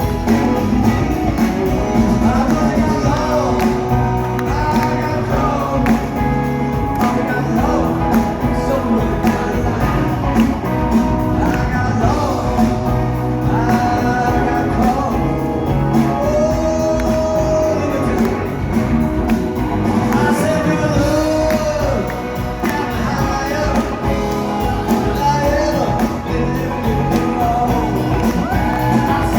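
Rock and roll song playing: a full band with a steady beat and a sung vocal line.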